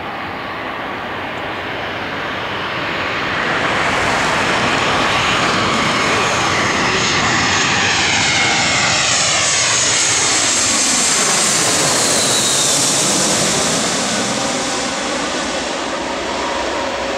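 A twin-engine jet airliner on landing approach passes low overhead. Its engine noise swells, is loudest as it goes over, and eases as it moves away toward the runway, with a sweeping tone that falls in pitch during the pass.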